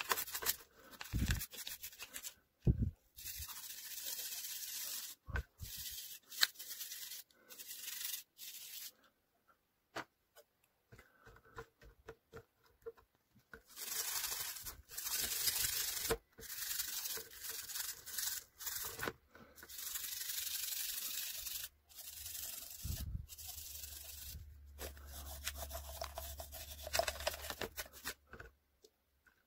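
A toothbrush scrubbing small toy parts in soapy water. The scrubbing comes in stretches of quick strokes broken by short pauses, with a few light knocks.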